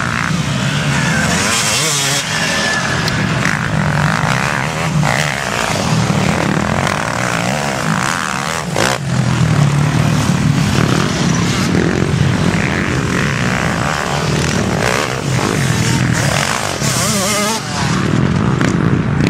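Enduro dirt-bike engines revving hard, their pitch rising and falling with the throttle as bikes pass close by one after another.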